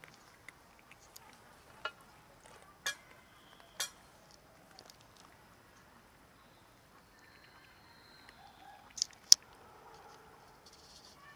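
Cats feeding from plastic food containers: scattered sharp clicks and taps, with two loud clicks close together about nine seconds in.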